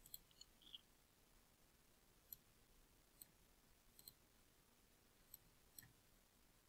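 Faint computer mouse clicks, about nine scattered single clicks and quick pairs, over near silence.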